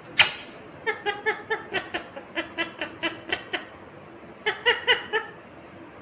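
Indian ringneck parakeet calling: a harsh squawk just after the start, then a quick run of short repeated pitched notes, a pause, and a few more notes near the end.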